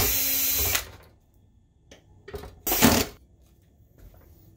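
DeWalt cordless drill/driver running in two short spins: about a second at the start, and a shorter one about three seconds in. It is backing out the screws that hold a sheet-metal frame inside the projector chassis.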